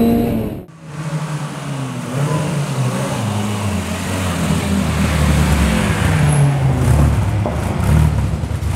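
A rally car engine revving up, its pitch rising, until it cuts off abruptly under a second in. Then a car engine running with a low, uneven note that rises and falls.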